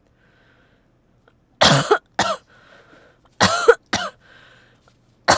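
A woman coughing in a fit, a sign of her cold: two double coughs about two seconds apart, starting about one and a half seconds in, with a third beginning at the very end.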